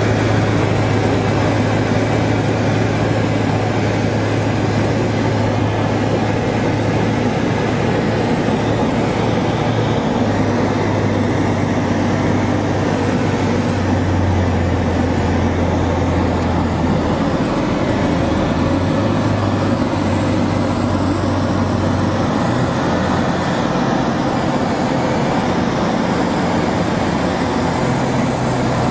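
Light single-engine propeller aircraft's engine and propeller droning steadily, heard inside the cockpit on the landing approach. The engine tone dips in pitch for a few seconds about halfway through and rises again near the end.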